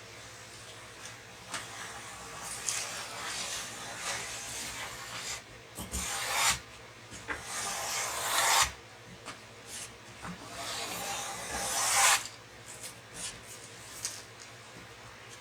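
A hand tool rasping and rubbing along wooden canoe ribs as they are faired. Several long strokes swell and stop sharply, the loudest late on, with light knocks between them.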